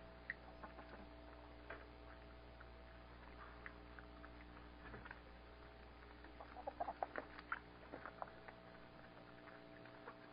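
Hens clucking and chirping faintly, with a quick run of short calls about six and a half to eight seconds in, over a steady low electrical hum.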